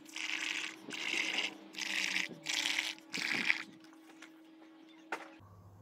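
Bubbling from blowing through a plastic drinking straw into a bowl of watery paint mixed with washing-up liquid, in about five short breaths that stop about three and a half seconds in. A single click follows near the end.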